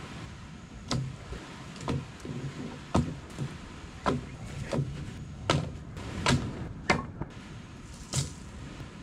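Sticks of firewood knocking and clattering as they are dropped onto a pile, about nine separate knocks at uneven intervals.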